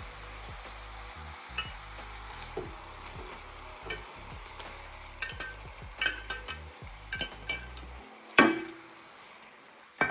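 Garlic, lemon and white-wine sauce in olive oil and butter sizzling and bubbling in a skillet as cooked shrimp and mushrooms are added back in, with frequent light clinks and taps of utensils. A louder knock comes a little past the eighth second.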